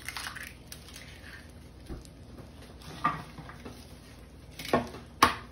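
Eggs being cracked on a flat wooden countertop and opened into ceramic ramekins: a few short taps and shell cracks, the sharpest near the end.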